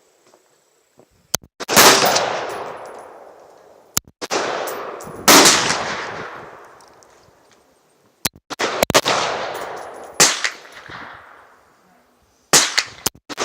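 Ruger AR-556 semi-automatic rifle in 5.56 NATO fired about a dozen times at uneven intervals, sometimes two or three shots in quick succession. Each loud crack is followed by a long echo that fades over a second or two.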